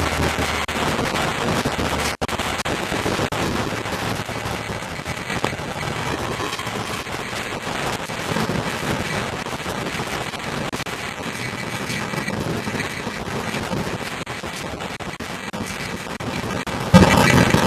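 Storm noise of rain and wind: a dense, steady crackle hitting the camcorder microphone, with a brief cut about two seconds in and a louder surge near the end.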